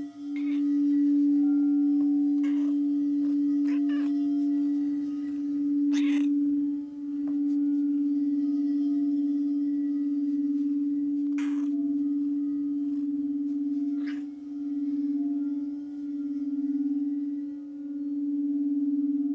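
Singing bowl sounding one steady low tone that swells and dips in slow waves, with fainter higher ringing tones above it. A few short, soft noises break in over it.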